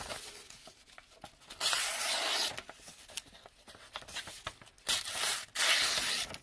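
Small blade of a Victorinox Swiss Army knife slicing through a sheet of paper: two cuts, each about a second long, the first a little over a second in and the second near the end.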